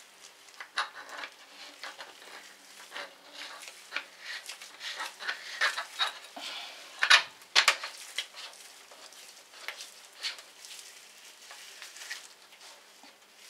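Irregular clicks, scrapes and knocks as the motorcycle fork's top cap is pressed down against the spring and turned onto the fork tube's threads by hand, loudest about seven seconds in.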